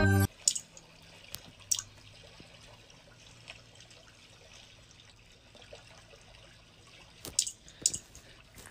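Faint clicks and taps from a cat playing a fish game on a tablet, over quiet room tone; a couple of sharp clicks come early and a quick cluster near the end.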